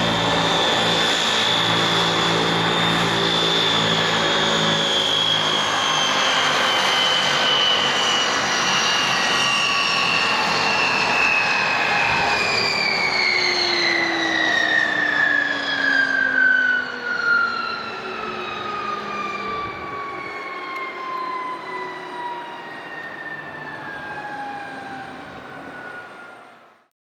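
NAMC YS-11's Rolls-Royce Dart turboprop engines winding down after shutdown. A high turbine whine falls steadily in pitch and grows quieter as the compressors and propellers spin down, while the lower engine drone fades out in the first few seconds.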